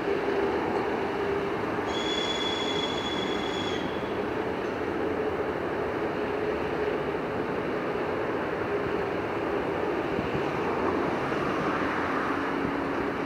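M62 diesel locomotive running past with a steady engine hum and rail noise. A high squeal lasts about two seconds near the start, and the engine note drops lower near the end.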